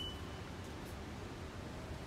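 A steady high electronic beep, typical of a train's door-closing warning, ends about half a second in. A low, even rumble of the train carries on under it.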